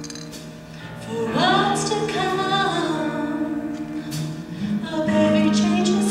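Live choir and orchestra music: held chords from the accompaniment, a singing voice coming in about a second in, and a fuller, louder chord near the end.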